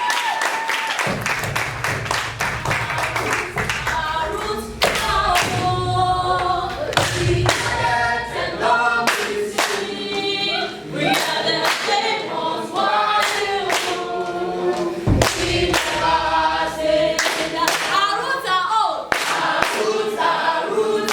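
A group of voices singing together unaccompanied, with steady rhythmic hand clapping.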